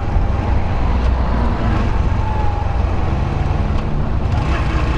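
Yamaha YBR125's single-cylinder four-stroke engine running steadily under way, with steady wind noise. Its note steps up a little about three seconds in.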